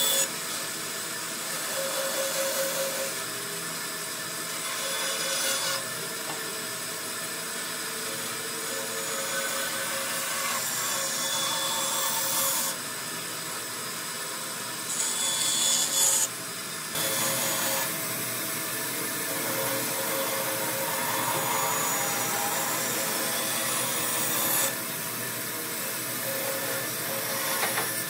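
A woodworking tool running on wood, making a steady grating noise with faint steady tones in it. The sound changes abruptly in level and character every few seconds.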